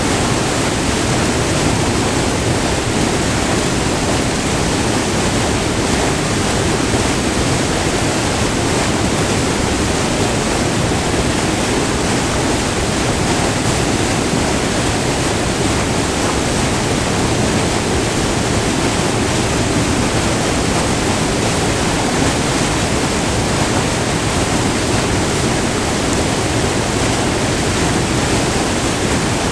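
Waterfall: white water pouring over a short, multi-tiered cascade in a steady, unbroken rush.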